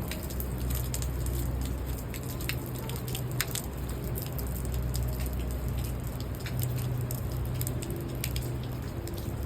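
Rain falling on a city street, with scattered sharp drips and ticks of drops hitting nearby surfaces over a steady low city rumble.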